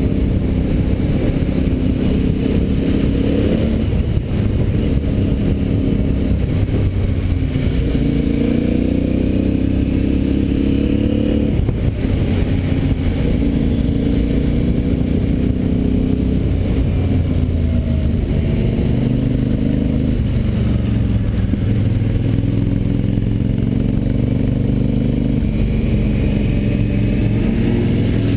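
Motorcycle engine running while riding, its pitch climbing and then dropping back several times as it changes gear, over a steady low rumble.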